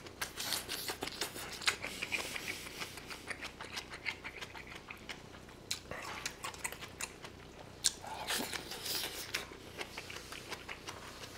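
Close-miked chewing and mouth sounds of a person eating bulgogi with kimchi: quick wet clicks and smacks in several spells, with pauses between mouthfuls.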